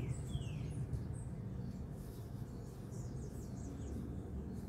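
Steady low background hum with a few faint, short, falling bird chirps, mostly in the first second.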